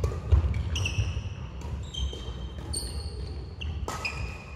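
Badminton rally on a wooden sports-hall floor: sneakers squeak several times, footsteps thud, and rackets strike the shuttlecock with sharp clicks.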